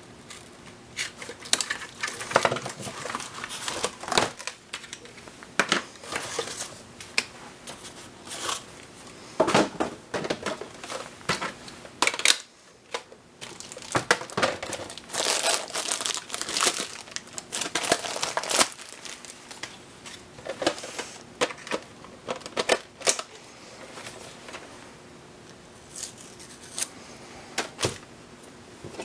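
Unboxing noise: cardboard packaging and plastic wrap crinkling and rustling, with irregular clicks and knocks of hard plastic Nerf blaster parts being taken out and handled.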